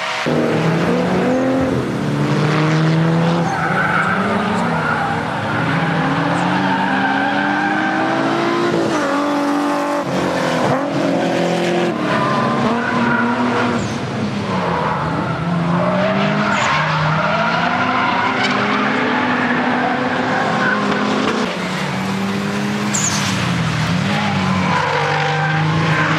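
Mitsubishi Lancer Evo IX's turbocharged 4G63 four-cylinder, tuned to about 420 hp, revving up and down over and over as the car drifts. The tyres squeal and skid under it.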